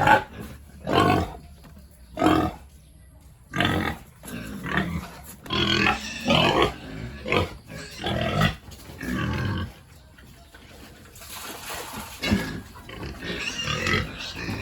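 Pigs calling in a run of short, repeated grunts and squeals, with a quieter stretch around ten seconds in before the calls pick up again.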